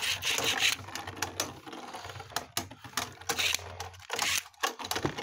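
Two plastic Dread Bahamut Beyblade tops spinning against each other in a plastic stadium: a steady whir with rapid clicks and knocks as they rub and collide, fading near the end.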